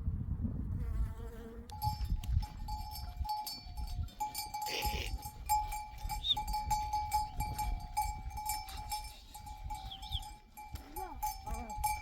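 Sheep bells ringing and clanking unevenly as the flock moves, after an insect buzzing briefly at the start. Near the end a sheep bleats.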